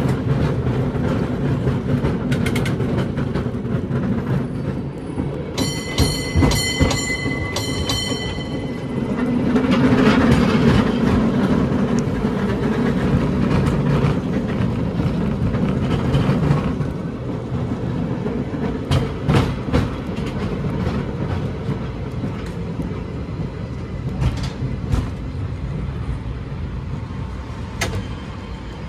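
San Francisco tram car running along its track: a steady rumble with rattles and clicks. About five and a half seconds in, a ringing signal is struck rapidly for about two seconds.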